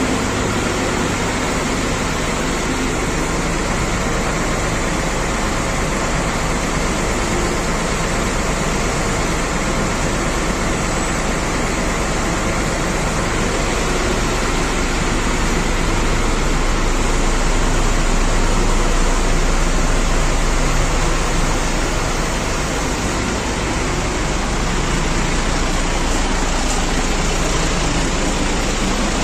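Large bus diesel engine idling: a steady low throbbing rumble under a loud even rushing noise.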